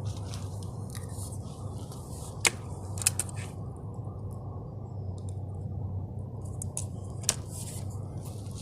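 Muffled rubbing and crackling of the recording phone being handled or carried, over a steady dull rumble, with a few sharp clicks about two and a half, three and seven seconds in.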